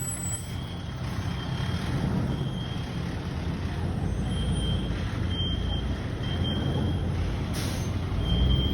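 Heavy truck engine idling steadily, with a brief hiss of air about seven and a half seconds in. A faint high tone beeps briefly every second or two.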